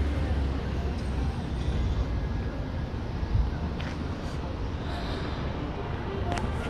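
City street ambience with traffic passing: a steady noise with a low rumble that is strongest in the first second.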